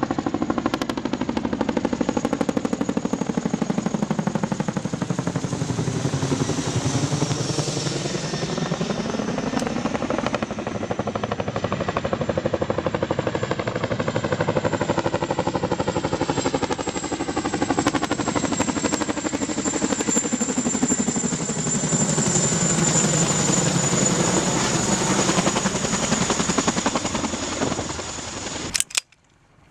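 Steady drone of an aircraft engine, its pitch slowly sweeping down and back up, with a thin high whine above it. It cuts off abruptly near the end.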